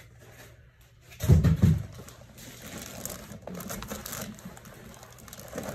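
Packaging being handled: foam packing blocks and plastic wrap rustling and crinkling as they are lifted off the amplifier, with a low thump about a second and a half in.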